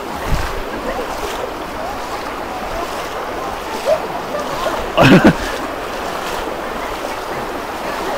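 Steady rushing noise of fast-flowing floodwater. A person's voice calls out briefly about five seconds in.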